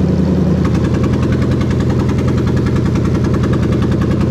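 Toyota 3UZ-FE V8 engine running steadily on the test bench. From about half a second in, a fast, even metallic ticking rides on top of it.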